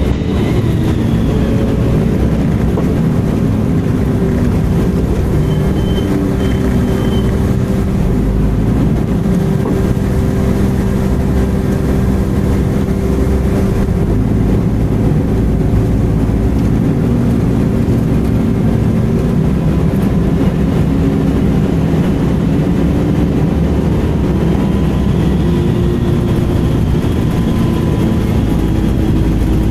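Volvo B10M bus's underfloor six-cylinder diesel engine running steadily under way, with a high-pitched screech heard briefly about six seconds in and again, rising and fading, near the end.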